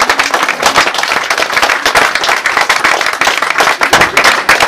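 Audience applauding: a dense, steady run of many people's hand claps.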